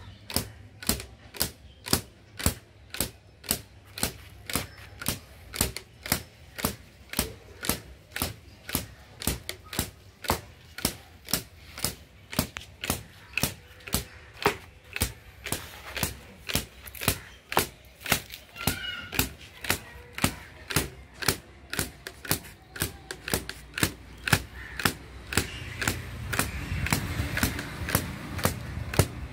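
Cotton-carding bow (dhunki) with its taut string struck over and over by a wooden dumbbell-shaped mallet (jista), twanging at a steady beat of about two strikes a second as it beats and fluffs loose cotton.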